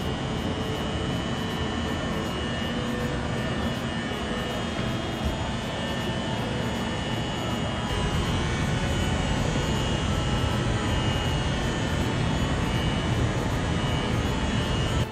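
Fukui Railway F1000 'Fukuram' low-floor tram standing with its doors open, its onboard equipment giving a steady drone with a faint high whine. A low rumble grows louder about halfway through.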